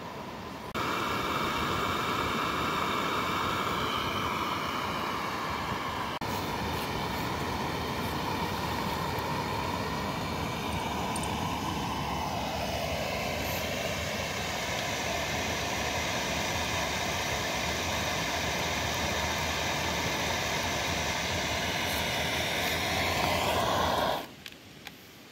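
Primus gas-canister backpacking stove burning at full flame, a loud steady hiss under a stainless pan of water coming to a boil. The hiss cuts off suddenly near the end as the stove's valve is shut.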